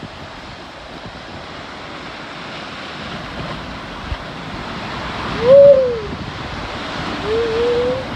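Water rushing down a water-slide tube with wind noise on the microphone, building through the ride. A person's voice gives two long calls over it, the loudest about five seconds in and a second, slightly rising one near the end.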